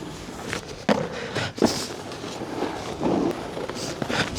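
Snowboard sliding and scraping over hard, icy snow, with a few sudden knocks and scrapes as the board hits and rides the park feature.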